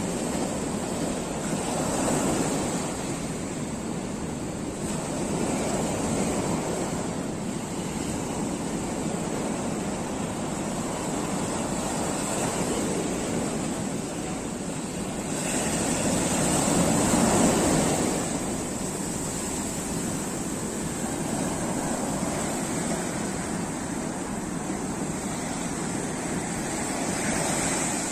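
Sea surf breaking on the shore: a continuous rushing wash that swells and eases as the waves come in, with its loudest surge a little past the middle.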